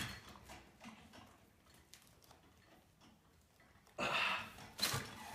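A man's loud, forceful breaths as he strains to press a heavy chain-hung weight overhead: one at the start and another about four seconds in, with faint clicks between and two sharp clicks near the end.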